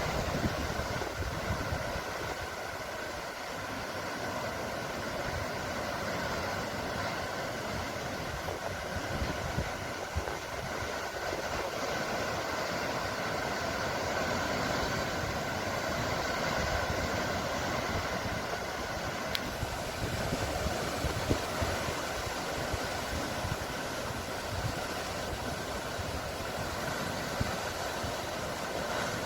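Steady rushing noise with a faint, even hum beneath it and a few small ticks, holding level without the rise and fall of breaking waves.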